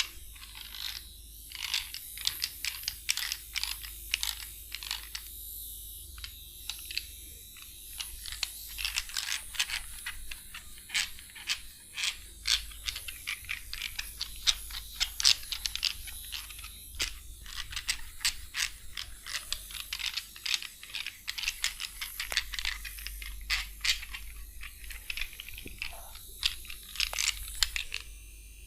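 Rapid dry crackling from hair cracking: tufts of hair tugged and twisted between the fingers, snapping in irregular clusters of several clicks a second, stopping abruptly near the end.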